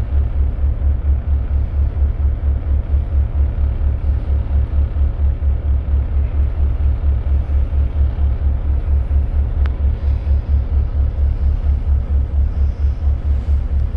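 A Freshwater class ferry's diesel engines running at cruising speed, heard from inside the passenger cabin: a steady deep throb that pulses rapidly and evenly, about five beats a second, over a constant rumble.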